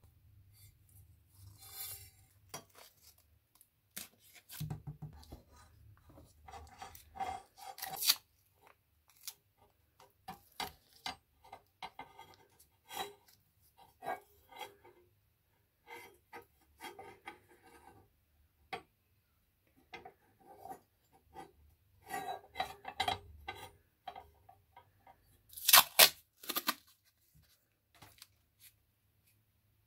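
Restored old steel scissors being worked and cutting masking tape and paper: scattered metallic clicks of the blades and short snipping cuts, with a louder pair of cuts about 26 seconds in.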